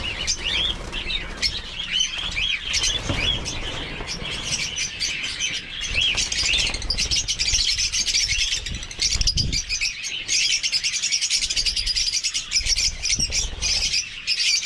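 A flock of caged lovebirds chattering: a dense, unbroken mass of high, shrill chirps, busier and louder from about nine seconds in.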